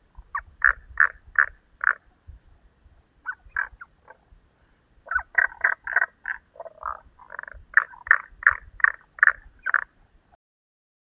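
Frogs calling in runs of short croaking notes, about three a second, in several bouts; the sound cuts off abruptly near the end.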